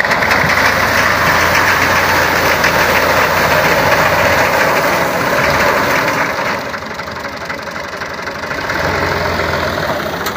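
2003 Ghazi tractor engine running under load while it drives a front-mounted chain reaper cutting standing wheat. It is loudest for the first six seconds or so, then somewhat quieter.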